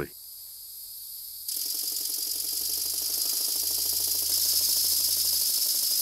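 Model steam machinery running on compressed air: a steady hiss of air with a fast, fine rattling beat. The hiss jumps louder about a second and a half in.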